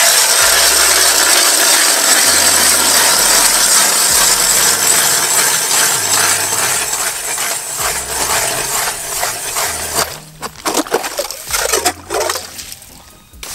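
Hand ice auger cutting through wet lake ice: a steady rasping, crunching scrape of the blades as it is cranked round. It thins out about ten seconds in, followed by a few separate scrapes.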